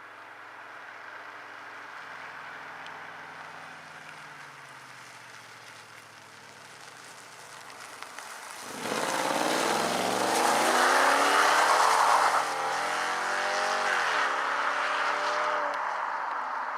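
BMW E32 7 Series petrol engine accelerating, its pitch climbing through the gears and dropping back at each upshift. The engine is faint at first and becomes much louder about halfway through.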